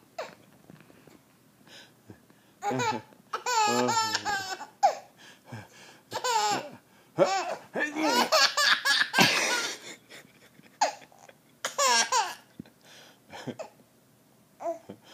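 A baby laughing in repeated short bouts of high-pitched giggles, with brief pauses between them.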